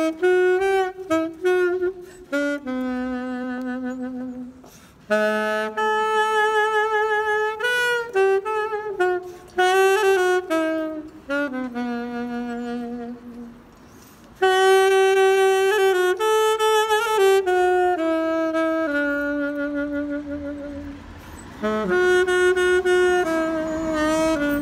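Solo saxophone playing a slow melody, one note at a time: phrases of held notes with vibrato, separated by short pauses for breath.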